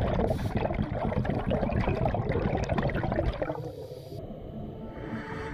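Underwater bubbling and gurgling from a scuba diver's exhaled air, which falls quieter a little past halfway.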